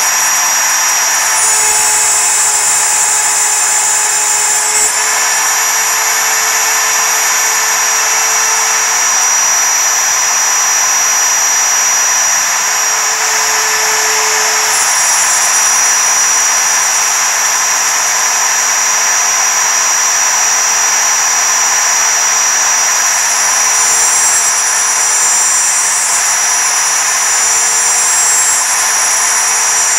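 Router spindle on an MPCNC running at full speed, its single-flute end mill cutting 6061 aluminum plate at 1.1 mm depth with no air blast. It makes a loud, steady high whine over the hiss of the cut, shifting slightly in tone a few times.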